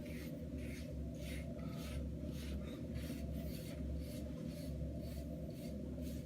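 Curved hard-bristle Diane wave brush stroked again and again over short hair to lay 360 waves down: a short scratchy swish about twice a second, over a steady low hum.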